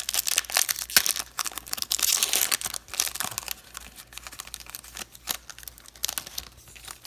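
A 2018-19 Upper Deck Ice hockey card pack's wrapper being torn open and crinkled, densest in the first three seconds. Lighter scattered crackling and rustling follows as the cards are handled.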